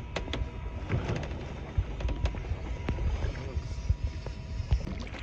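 Wind rumbling on the microphone aboard a fishing boat at sea, with scattered clicks and knocks.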